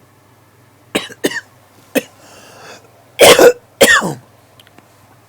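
A man coughing: a few short, sharp coughs, then two loud coughs in a row about three seconds in.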